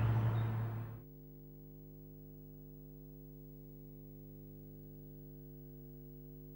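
A large Japanese temple bell's deep, loud hum with outdoor noise fades out within the first second. After that only a faint, steady hum of several even, unchanging tones remains.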